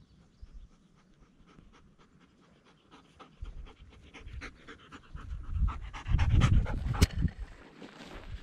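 Dog panting in a quick, even rhythm, growing louder as it trots up close. Near the end come heavier footsteps brushing through dry grass.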